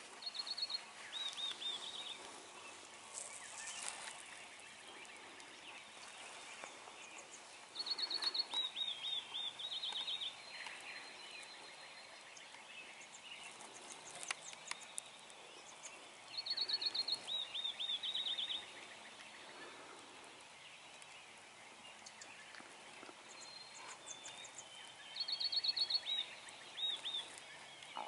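Songbirds singing in woodland. One bird repeats the same short song four times, about every eight seconds: a quick high trill followed by a run of falling notes. Other birds call faintly in between.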